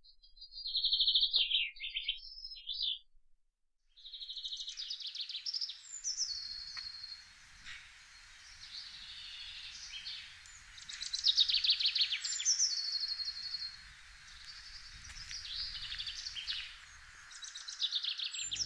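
Wild songbirds singing. One bird repeats a short, falling trill about every six seconds over softer song from other birds, with a brief break about three seconds in.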